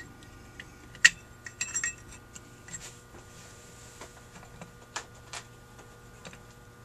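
Small metal carburetor parts clicking and clinking as they are handled and pressed into a Holley 1904 float bowl. One sharp click comes about a second in, a quick run of clinks follows, and a few more come around five seconds.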